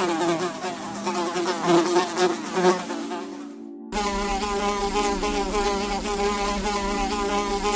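A flying insect buzzing, a droning hum that wavers in pitch; it drops out briefly about four seconds in and comes back steadier.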